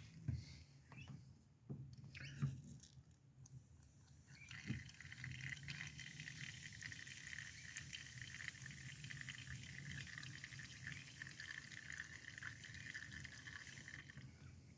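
Breath blown through the mouth-blown pressure tube of a vintage 12-volt in-car coffee maker, forcing hot water through the coffee grounds: a steady, liquid-sounding hiss lasting about ten seconds that cuts off suddenly near the end. A few light clicks and knocks come before it.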